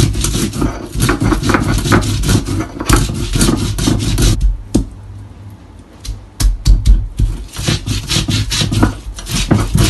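Sil-batta, a flat grinding stone and stone roller, grinding whole spices, garlic and ginger into a wet masala paste: quick, rough back-and-forth scraping and crushing strokes of stone on stone. The strokes pause for about two seconds a little before halfway, then start again.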